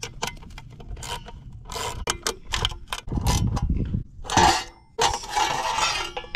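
Wrench clicking on the bolts of a Coleman CT100U minibike's chain cover, with metal parts clinking and scraping as the cover is worked loose. There is a louder clank about four seconds in.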